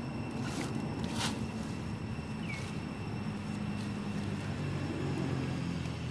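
Steady low rumbling hum, with two sharp clicks about half a second and just over a second in, and a faint short chirp a little past two and a half seconds.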